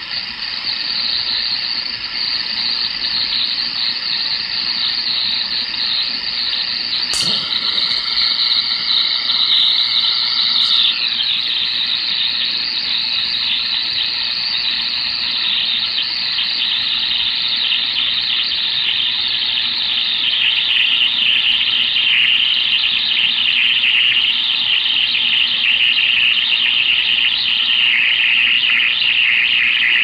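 Stryker SR-955 10-meter transceiver's speaker giving out an odd, steady, high-pitched hissing squeal: an unidentified noise drifting down the 11-meter band, which most listeners would take for atmospheric noise. A sharp click comes about seven seconds in, faint steady tones sound until about eleven seconds, and the noise drops slightly in pitch about twenty seconds in.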